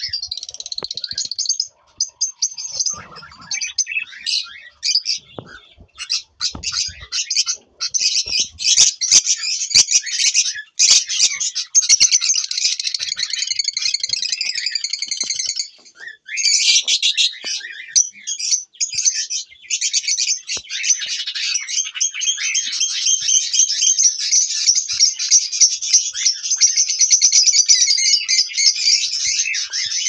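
A flock of budgerigars chattering with dense, rapid high chirps and warbles that go on almost without a break.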